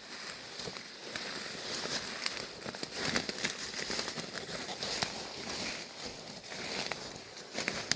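Rustling of leaves and brush with many small crackles and twig snaps, as a hiker pushes on foot through dense undergrowth.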